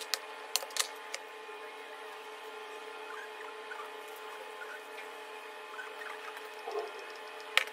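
Steady workshop hum with a few light clicks as engine parts (a piston, con-rod and bearing shell) are handled on a steel bench, and one sharper click near the end.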